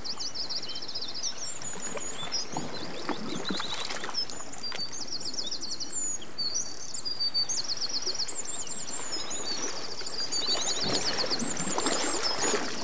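Many small songbirds chirping, with quick trills of rapidly repeated high notes, over a steady hiss of outdoor background noise.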